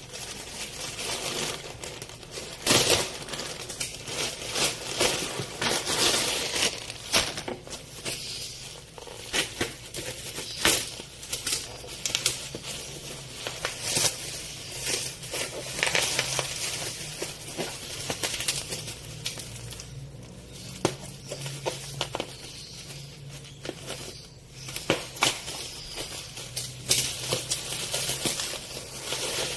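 Plastic packaging crinkling and rustling, with irregular clicks and knocks as the parts of a grinder are handled, over a faint low hum.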